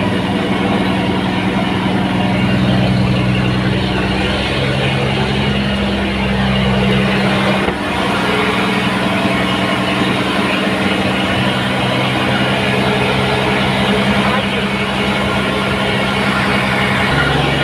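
An engine running steadily, its low hum shifting in pitch a few times, with a brief dip in level about eight seconds in.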